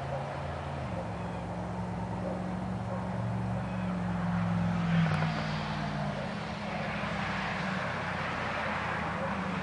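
Dodge Ram pickup's engine heard through an open exhaust cutout, bypassing the muffler, as the truck drives along the road: a low, steady drone whose pitch steps about a second in and again around six seconds.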